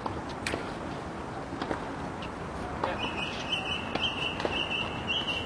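A few sharp taps, then from about halfway a high, pulsing chirp from a small animal that repeats evenly without a break.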